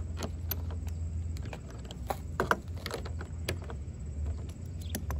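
Irregular light clicks and taps of a hand ratchet working the screws of a plastic truck headlight housing, over a steady low hum.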